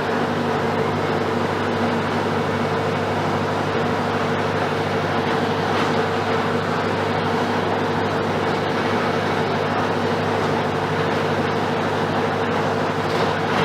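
Diesel engine of a Mercedes-Benz OF-1721 BlueTec 5 bus running at a steady speed, with a steady hum and road noise and no change in pitch.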